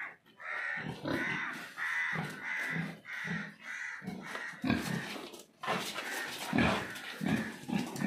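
Pigs grunting in a pen, a steady run of short grunts about two a second, louder and deeper in the second half.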